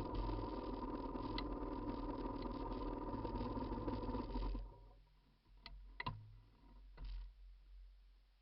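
Honda NSR250's two-stroke V-twin engine running steadily, then falling away about four and a half seconds in. A few faint clicks and knocks follow.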